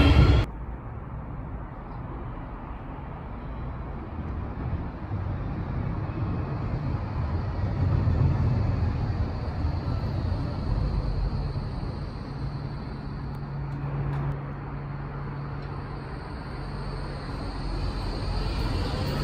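Steady outdoor rumble from a Cobra low-floor tram approaching along the track and drawing into the platform, growing louder near the end.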